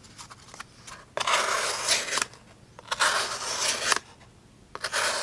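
Civivi Incite linerlock's D2 steel blade slicing slowly through a material, three long drawn-out cutting strokes of about a second each with short pauses between them.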